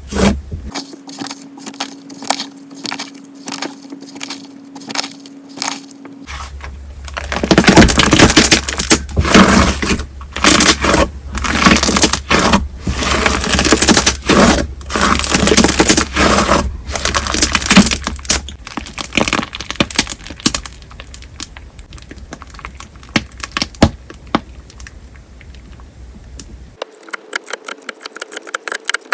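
Candle-type thick slime being worked by hand, its glossy surface film bursting in loud crackles and pops as air is folded in. There are separate snaps at first, then a dense run of crackling through the middle, thinning to scattered clicks near the end.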